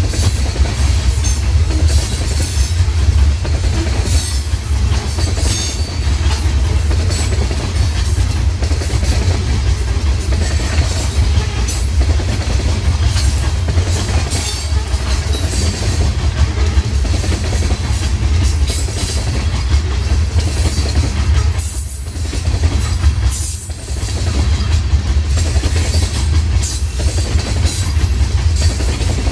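Loaded coal hopper cars of a freight train rolling past, their steel wheels clacking and knocking over the rail joints over a steady low rumble. The noise dips briefly twice about three quarters of the way through.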